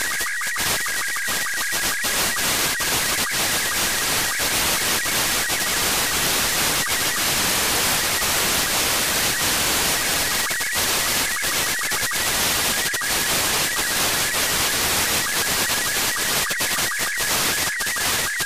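Robot36 SSTV picture signal from the UmKA-1 satellite, demodulated in narrow FM from an RTL-SDR: a fast, ticking warble of high tones under heavy radio static. The static swells and nearly buries the warble over much of the first half, and the tones come through clearer again later on.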